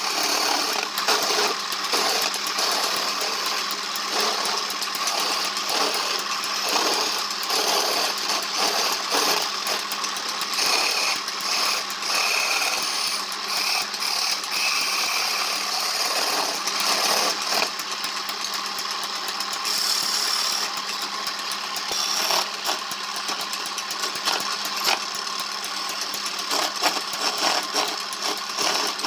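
A handheld power tool running continuously as it works on wood, with an uneven, rattling texture throughout.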